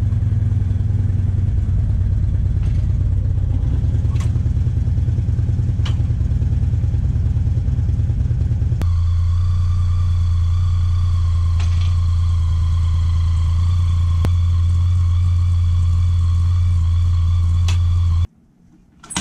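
Motorcycle engine idling steadily, a low even hum with a fine pulse. It changes suddenly about nine seconds in and cuts off shortly before the end.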